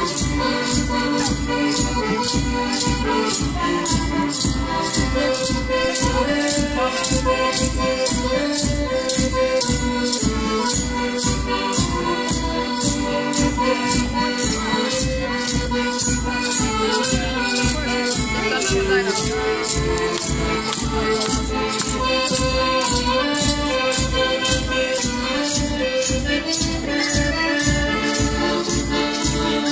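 Live Madeiran folk music: a group singing together over plucked string instruments, with a rattle-like percussion keeping a steady beat of about two strokes a second.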